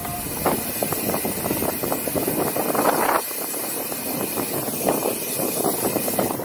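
Mountain-bike riding noise: wind rushing over the camera microphone while the tyres crunch and rattle over a rough dirt track. There is a louder gust about three seconds in.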